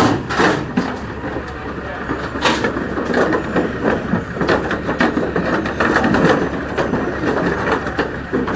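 Crowd of onlookers talking over one another, with scattered knocks and clatter.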